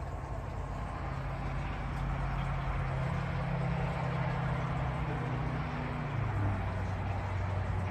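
A motor vehicle going past: a steady low engine hum with tyre noise that grows louder, its pitch dropping about six seconds in as it passes.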